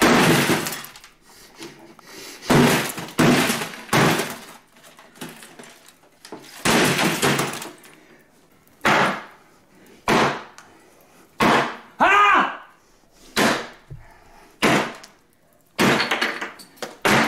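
Glass coffee-table top and a game console being smashed with a hand tool: a dozen or more sharp blows about a second apart, each with glass breaking and crunching.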